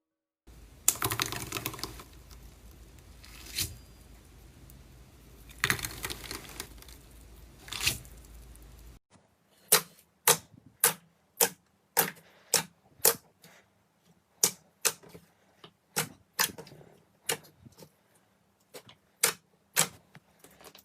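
Slime being pressed and poked close to the microphone: a few crackly squishes over a low hum, then from about nine seconds in, a run of sharp clicking pops at about two a second.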